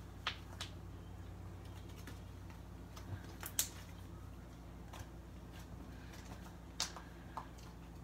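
Butter slime kneaded and pressed by hand against a tabletop: irregular small clicks and pops as air is squeezed out of the slime, a few louder ones scattered through, over a faint steady hum.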